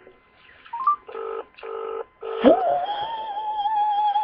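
UK telephone ringback tone heard through a phone's loudspeaker, the double ring of a number ringing out unanswered. Over the second half a long, wavering pitched note slides up and holds; it is louder than the ringing.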